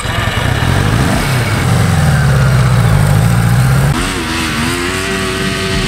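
Small off-road engine running and revving, its note changing about four seconds in.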